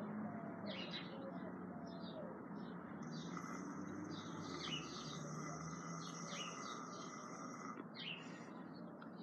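Faint outdoor birdsong: repeated short high chirps, with a long high trill held for several seconds in the middle, over a steady soft hiss.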